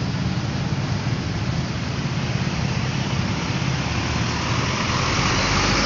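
Diesel engine of a Hino 500 truck idling close by, a steady low hum over the noise of stopped traffic, getting a little louder near the end.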